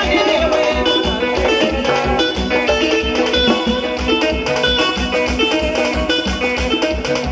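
Upbeat dance music with a steady, pulsing low beat and a busy plucked-string melody, played for a group of dancers.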